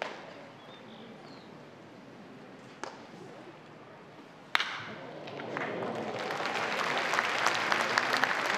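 Sharp crack of a wooden bat hitting a pitched ball about four and a half seconds in. Spectators' applause follows, swelling over the next second or so and holding as the hit goes through to the outfield.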